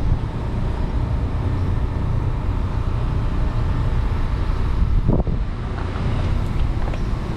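Steady low outdoor rumble of wind on the microphone and road traffic, with a brief squeak about five seconds in.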